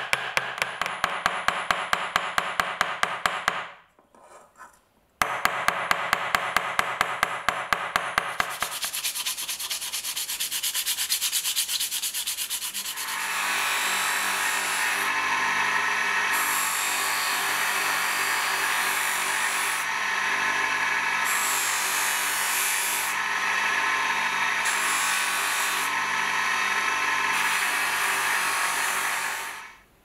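A small hammer peening a rivet on a pocket knife's handle against an anvil in rapid light taps, pausing briefly about four seconds in. From about halfway through, an electric bench buffing-wheel motor runs steadily, with a hissing rub as the wooden knife handle is polished on the wheel, and it cuts off suddenly at the end.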